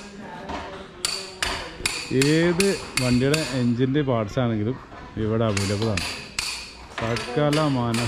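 Runs of sharp, ringing metal-on-metal hammer blows, about three a second, from a hammer driving a steel bar against a scrap engine to break it apart. A man's voice rises and falls between the runs of strikes.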